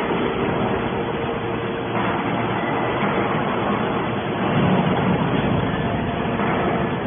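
Hydraulic scrap aluminium baler running, a steady mechanical drone with a faint constant hum, swelling slightly a little past halfway.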